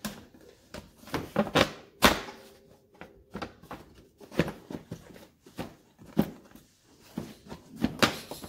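Kawasaki Prairie 400's hard plastic inner fender panel being slid and pushed into place by hand, with irregular scrapes, knocks and clunks of plastic against the frame, the loudest about two seconds in and near the end.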